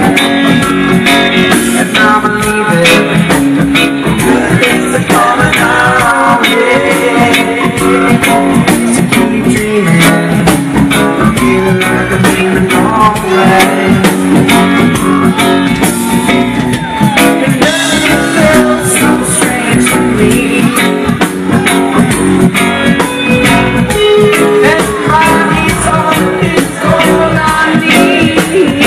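Live reggae band music: an instrumental stretch of the song, with electric guitar lines gliding over the band.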